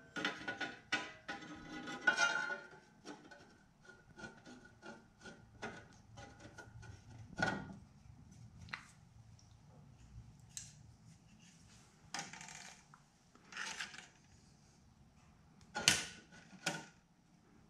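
Handling noise of a cast aluminum spacer disc being fitted between steel legs and a spirit level laid across it: light clicks, taps and scraping rubs, with louder scrapes about halfway through and near the end.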